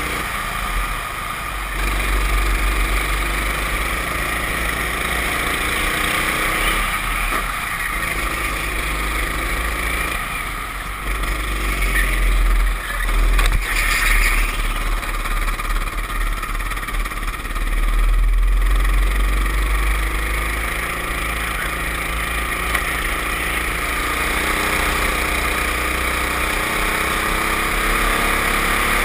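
Racing kart engine heard onboard at race speed, its pitch dropping off into corners several times and climbing again along the straights, rising steadily near the end.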